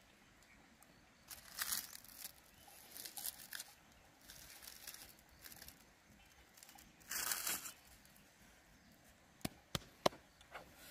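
Fresh green leaves rustling and crinkling as they are handled and pulled apart by hand, in several short bursts. A few sharp knocks follow near the end.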